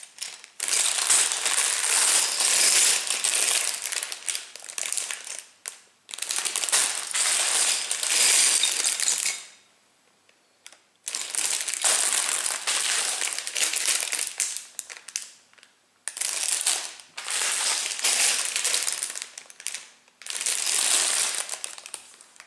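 Crinkly plastic bags full of Lego bricks being handled, the loose bricks rattling inside. It comes in several bouts, with a pause of about a second and a half near the middle.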